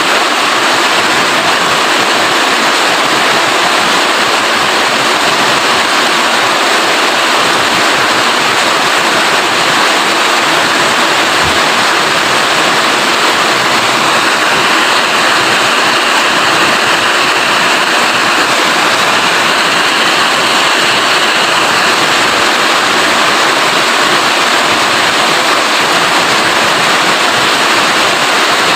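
Heavy rain falling steadily: a dense, even hiss that stays at the same loudness throughout.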